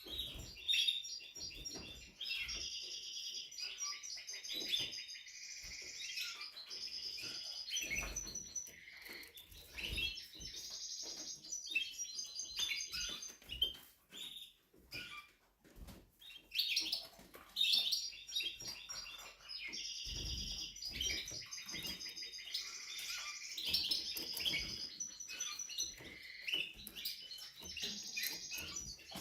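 Spanish Timbrado canary singing in long bouts of rapid trills and rolls, phrase after phrase. There is a short pause about halfway through before the song starts again.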